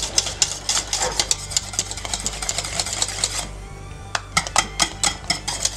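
Wire whisk stirring thick milk pudding in a stainless steel pot, clicking rapidly against the pot's sides. The clicks stop briefly about three and a half seconds in, then start again.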